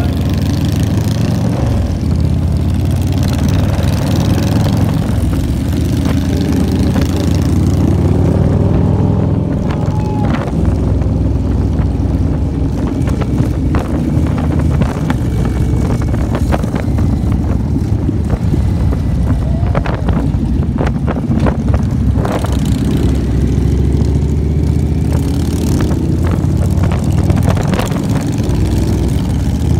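Motorcycle engine running under way, heard from the seat of the moving bike, with air rushing past. The engine pitch rises and falls a few times with the throttle.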